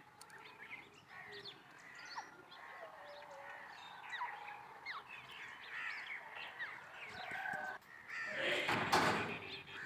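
Many small birds chirping and twittering in the background, with a loud, harsh, noisy burst lasting about a second and a half near the end.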